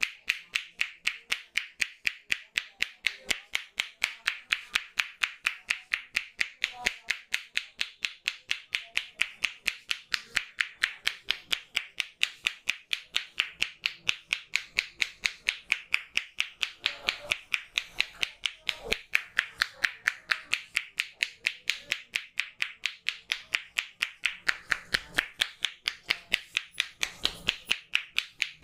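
Rapid, evenly paced hand strikes of an Indian head massage: clapping-like slaps and taps of the barber's hands on the head, about four a second, kept up without a break.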